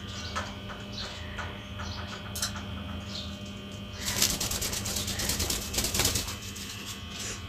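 A pet parakeet scrambling up a bedsheet: faint scattered clicks of claws, then about four seconds in a spell of rustling for two seconds or so as it climbs onto the bed.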